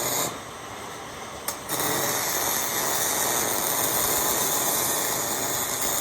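MIG welding arc crackling on hex mesh. It cuts out shortly after the start, a sharp click comes about a second and a half in, and the arc strikes again and runs steadily for the rest.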